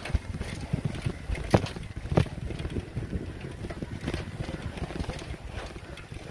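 Bicycle riding over a rough dirt path: a low rumble of tyres and frame with wind buffeting the microphone, and a few sharp knocks as it goes over bumps, the loudest about one and a half and two seconds in.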